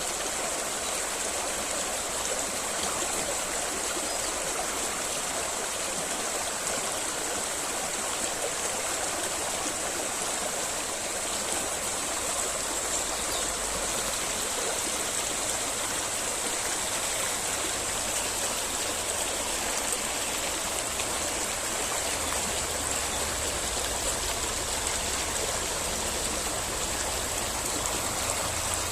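Small river flowing steadily, a continuous rushing and trickling of water.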